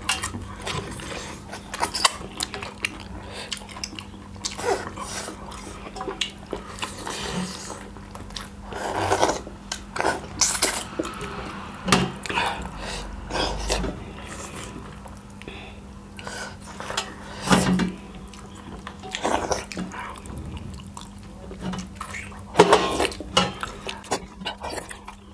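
Eating at a meal: irregular clinks and knocks of plates and utensils with mouth sounds of eating, over a faint steady hum.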